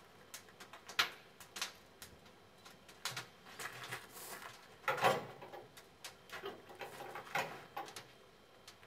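Irregular clanks and knocks of fire irons and metal fittings on a steam tank locomotive's footplate as the crew tends the open firebox during a warm-up firing. There are five or six sharp knocks, spread unevenly over several seconds.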